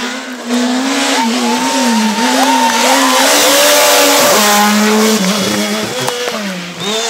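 Rally car engine revving hard through a hairpin, its pitch climbing and dropping again and again with gear changes and throttle lifts, loudest as the car passes about halfway through.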